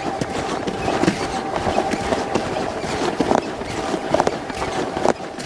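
Someone walking through snow: irregular crunching and scuffing steps with rustling close to the microphone.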